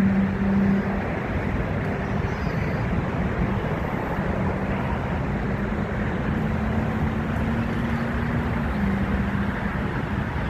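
Steady roar of airliner jet engines at taxi power, with a low hum that drops slightly in pitch near the end.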